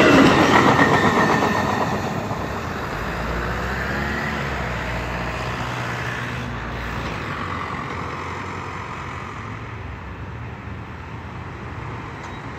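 Amtrak passenger train's cars rolling past on the rails, loud at first and falling away over about two seconds as the train moves off, leaving a low rumble that slowly fades.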